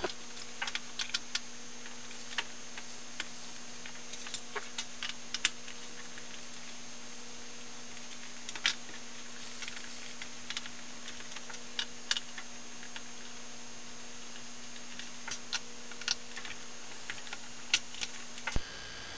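Small, irregular clicks and taps of a screwdriver and fingers on the plastic screen bezel of a Dell Vostro 1500 laptop as the bezel screws are unscrewed and taken out, over a steady low hum.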